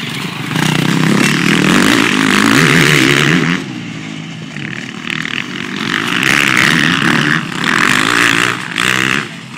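Motocross dirt bike engines revving hard as they ride past, the pitch rising and falling with the throttle. One bike is loud for the first few seconds and fades, then another builds up from about five seconds in and drops away sharply near the end.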